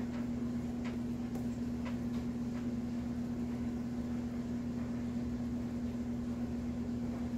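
A steady low electrical hum, like a motor or appliance running, with a few faint light ticks in the first few seconds.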